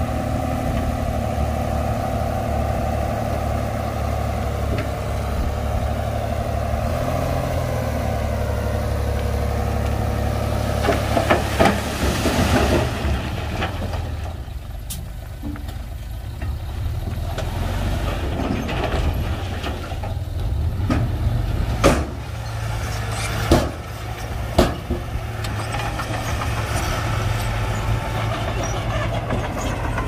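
Heavy diesel earthmoving machinery running steadily with a low drone. A cluster of knocks comes about eleven seconds in, and a few single sharp knocks come a little past twenty seconds.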